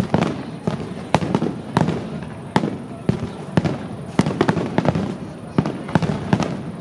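Fireworks display: aerial shells bursting one after another, about one or two booms a second, each followed by a rumbling echo.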